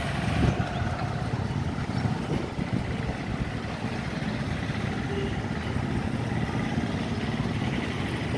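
Steady low rumble of road traffic, with engines idling and running.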